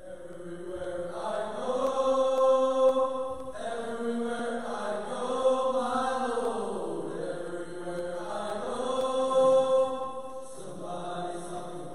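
Choir singing slow, held chords in long phrases, the harmony shifting every few seconds; it swells in over the first couple of seconds.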